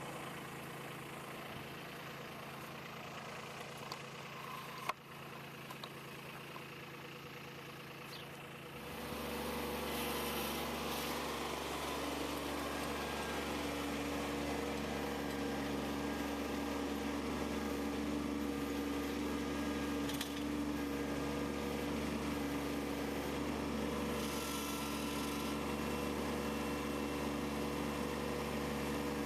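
Kubota B2601 compact tractor's three-cylinder diesel engine idling steadily, then about nine seconds in it speeds up and runs louder and steady at higher throttle.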